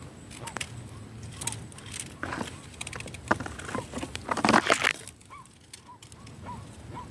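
Jacu (guan) making noise: a string of short repeated call notes, with a louder harsh outburst about four to five seconds in.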